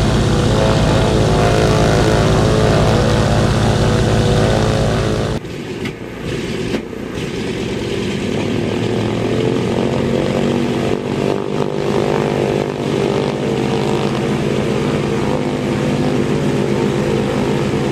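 Douglas C-47 Dakota's twin radial piston engines running on the ground, propellers turning, a dense low rumbling drone. About five seconds in, the sound drops abruptly and changes character, then builds back up to steady running, its pitch creeping slightly higher.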